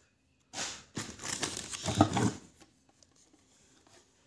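Packaging rustling and crinkling as items are handled and lifted out of a cardboard box. It starts about half a second in, runs for about two seconds with a few sharper crackles, then dies down to faint handling noises.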